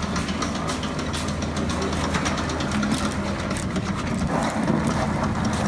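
A push lawn mower being wheeled over concrete and dirt, its wheels and frame rattling and clicking steadily, over a constant low engine hum.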